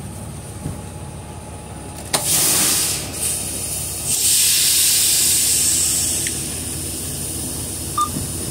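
Two bursts of compressed-air hiss from a semi truck's air brake system, the first starting sharply about two seconds in and lasting about a second, the second longer, about two seconds, over a low steady rumble. A brief click near the end.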